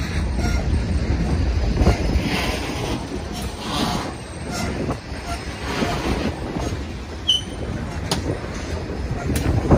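Freight train of tank cars rolling past close by: a steady low rumble of steel wheels on the rail, with repeated clicks as wheels cross rail joints and a brief high wheel squeal about seven seconds in.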